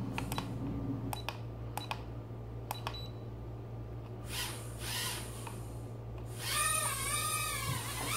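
A few sharp clicks, then from about six and a half seconds in the high whine of the JJRC H20 nano hexacopter's tiny motors spinning up, its pitch wavering up and down with the throttle.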